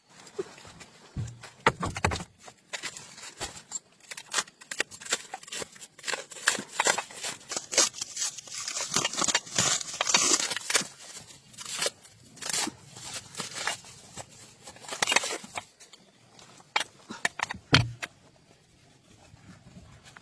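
Irregular scraping, clicking and tapping of hand work on engine parts, busiest through the middle and thinning out near the end.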